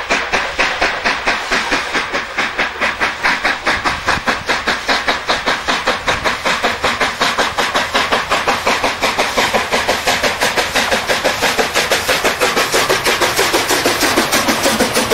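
ČSD class 464.2 4-8-4 tank steam locomotive 464.202 approaching under steam, its exhaust beating in a fast, even rhythm, growing fuller as it passes close near the end.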